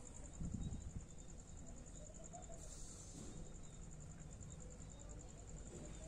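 Faint, steady high-pitched trill of a cricket, a fast even pulsing.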